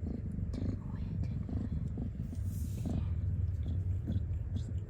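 A mother cat purring steadily during labour: a low, continuous rumble. There is a brief rustle about two and a half seconds in.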